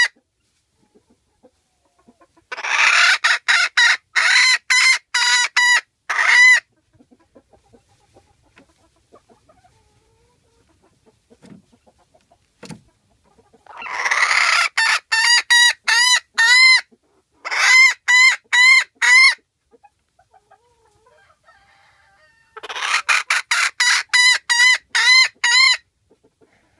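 Hen cackling in three loud bouts, each a run of short, evenly spaced calls, about three a second, with quiet stretches between them.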